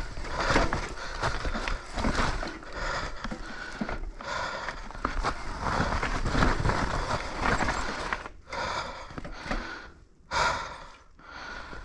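Trek Slash 7 full-suspension mountain bike riding fast down a steep dirt trail: a constant uneven clatter of tyres over loose soil, stones and roots and of the bike's chain and frame, with the rider's heavy breathing. The noise drops briefly a few times near the end.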